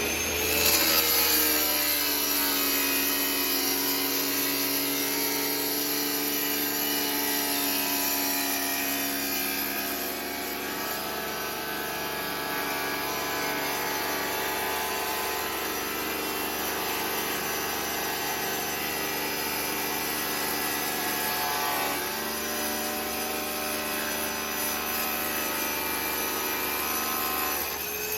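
Electric tile-cutting saw running steadily, its motor note shifting slightly a couple of times as it cuts through tile.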